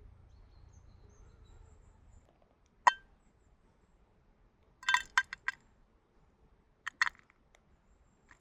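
Hard objects clicking and knocking together during hand work: one sharp click about three seconds in, a quick run of four or five clicks around the middle, and two more a little later.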